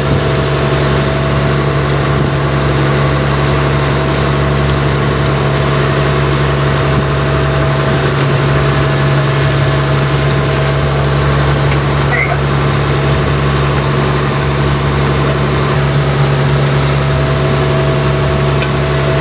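Fishing boat's engine running steadily at a constant speed, a loud, even drone with a deep hum.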